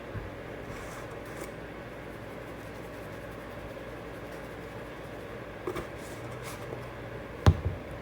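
Kitchen sounds over a steady low hum: a few light clicks and rustles, then one sharp knock about seven and a half seconds in.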